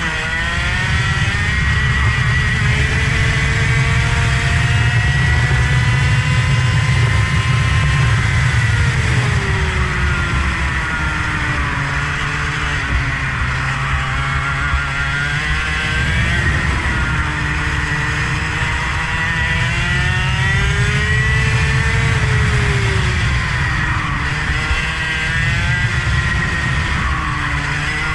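A vehicle engine driven hard around a circuit, its pitch climbing and falling again and again as it accelerates and slows, over a steady low rumble.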